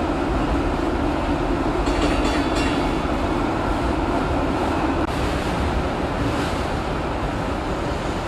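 Interurban tram running along street track, heard from the driver's cab: a steady hum and rumble of motors and wheels on rail. A brief high-pitched rattle comes about two seconds in.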